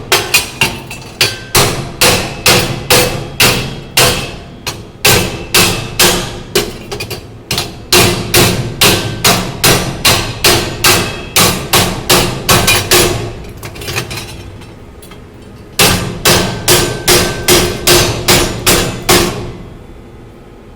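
A hammer chipping slag off a fresh arc weld on thin sheet steel: repeated sharp metallic strikes, about two to three a second, each ringing briefly. The strikes pause for about two seconds, resume, and stop near the end.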